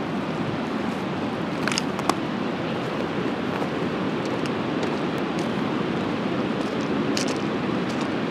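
Steady rushing of a river flowing over a stony bed, with a few brief sharp ticks about two seconds in and again near the end.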